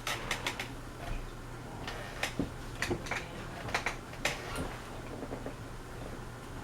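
Westinghouse Apollo Elite ceiling fan running on medium speed: a steady low motor hum with irregular sharp clicks and ticks, most of them in the first four and a half seconds.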